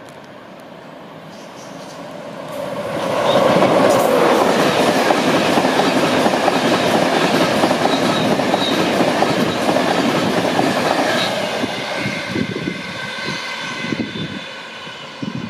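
An InterCity 225 express, hauled by a Class 91 electric locomotive with Mark 4 coaches, passing close at speed. The rush of wheels on rail and air builds about two seconds in, stays loud for several seconds as the coaches go by, then fades as the train draws away.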